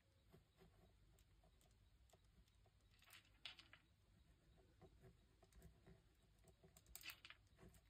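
Faint scratching and ticking of a pen writing on a paper scrapbook page, with a couple of louder scratchy strokes about three seconds in and again near the end.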